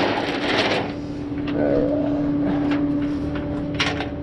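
A steady mechanical hum of the car hauler's truck running while the load is being lifted and positioned, with a sharp click just before the end.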